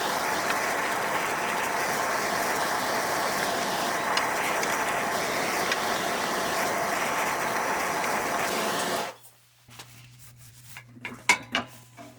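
Pneumatic ratchet running steadily under air, whirring with no hammering beat, cutting off abruptly about nine seconds in; a few light metallic clicks and taps follow.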